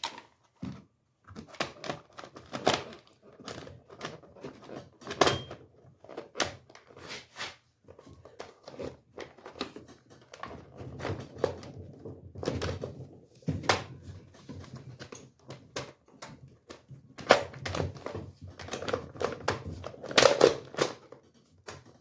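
Chainsaw top cover being handled and fitted back over a newly installed air filter: a string of irregular clicks and knocks from the plastic housing.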